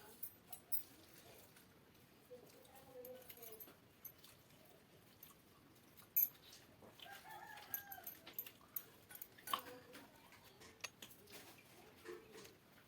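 Chickens clucking faintly, a few short calls now and then, with a few sharp clicks, the loudest about six seconds in.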